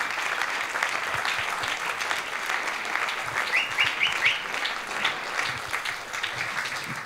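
Audience applauding, with a few short, high, rising notes about halfway through.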